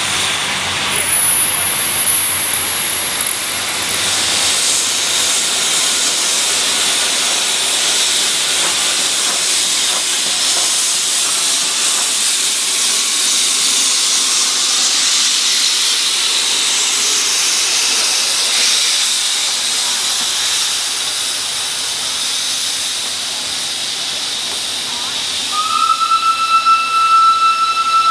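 Steam locomotive hissing loudly as it pulls out with a train, steam venting as it gets under way. A long, steady whistle starts near the end.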